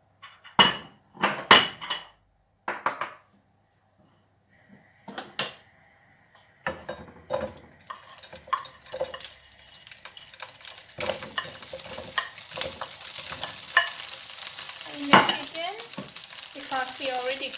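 A plate and wooden spoon clink sharply a few times. About four seconds in, pre-cooked diced chicken goes into hot oil in a non-stick frying pan and starts sizzling. The sizzle builds steadily while the wooden spoon scrapes and stirs the pieces in the pan.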